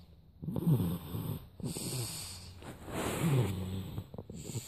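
Snoring: several snores in a row, each with a pitch that falls as it goes.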